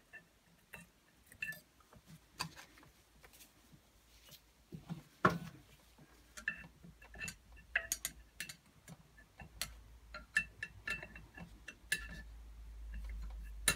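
Scattered small metal clicks and ticks of a circlip and circlip pliers being worked down the shaft of a Honda Pro mower roller unit to seat the clip in its groove, the sharpest click about five seconds in. A low rumble comes in over the last two seconds.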